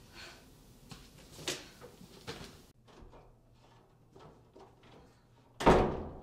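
Footsteps and small knocks as someone walks off, then near the end a door is shut hard with one loud bang that dies away quickly.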